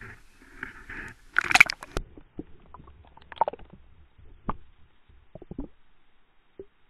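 A splash about a second and a half in as the camera is plunged into the lake water. It is followed by muffled underwater gurgling with scattered knocks and clicks, heard from inside the camera's waterproof housing.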